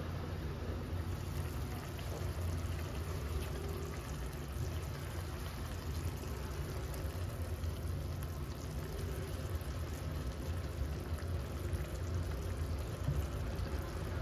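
Eggplant and tofu simmering in a saucepan: a steady bubbling of liquid over a low rumble.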